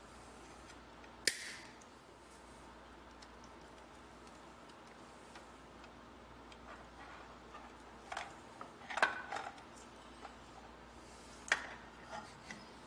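Sharp click about a second in, then a scatter of short clicks and knocks from about eight seconds on: connectors and metal parts being handled as a GM HEI distributor is unplugged and worked loose from a big-block Chevy engine. Faint steady room tone in between.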